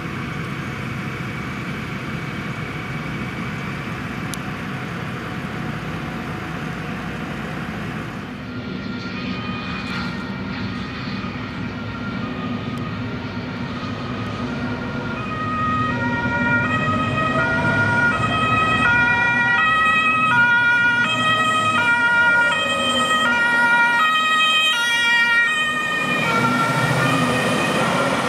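A Rosenbauer Panther 8x8 airport crash tender's diesel engines running steadily. After about eight seconds, a German two-tone siren (Martinshorn) starts, alternating between its two chords. It gets louder from about halfway through as the truck drives past with the siren going.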